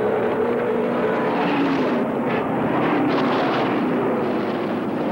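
Engines of vintage open-wheel racing cars running at speed around the track: a steady, loud engine drone with pitch shifting as the cars pass.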